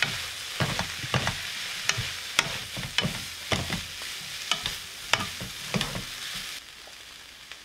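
Fish cake and vegetables sizzling as they are stir-fried in a frying pan, a wooden spatula tossing them with frequent light knocks and scrapes against the pan. About a second before the end, the sizzle drops away.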